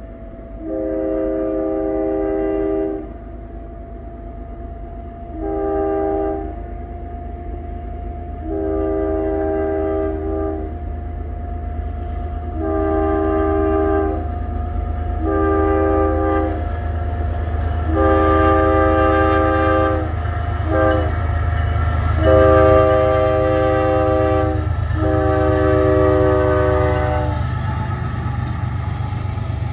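Air horn of a CSX GE ES44AC-H diesel freight locomotive sounding a long series of blasts, long ones and a short one, as it approaches a road grade crossing: the crossing warning. Under the horn, the rumble of the locomotives and train grows steadily louder as they near and pass the crossing.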